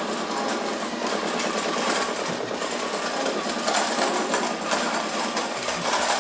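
Dense, rapid mechanical clattering and buzzing, like a small motor amplified through a pickup, from a noise setup built around a toy electric train. The texture stays steady and loud throughout.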